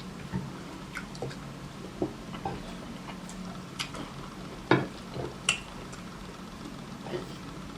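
Eating sounds of pounded yam and black soup taken by hand: soft squishes and scattered light clicks against a bowl. A sharper clink a little under five seconds in and another just after are the loudest, over a steady low hum.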